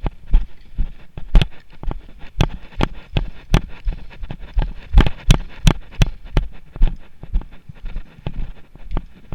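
Footsteps of a person walking briskly, regular thuds about two a second, with sharp clicks and knocks among them.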